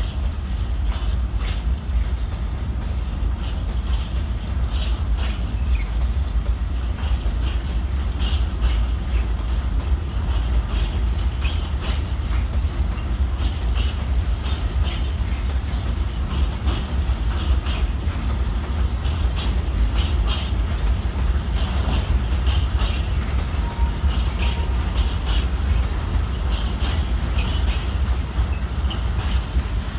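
Freight train of ballast hopper wagons rolling past, a steady low rumble with repeated clicks and clatter of wheels over the rail joints.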